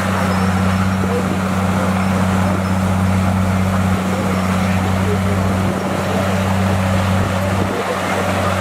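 Bulldozer's diesel engine running steadily with a continuous low drone.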